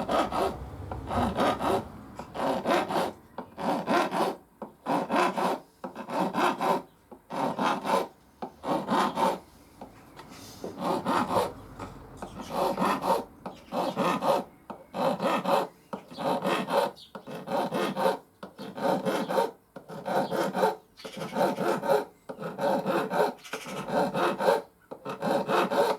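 Small flat file rasping along the bevelled fret ends of a guitar neck to take off the burrs. It goes up and back down in repeated strokes, about one every second and a half.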